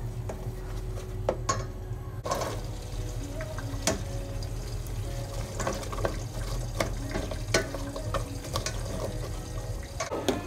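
Food being stirred in a stainless steel pot with a spatula: liquid sloshing, and the spatula scraping and knocking against the pot over a steady low hum. Water is poured in from a plastic measuring cup near the end.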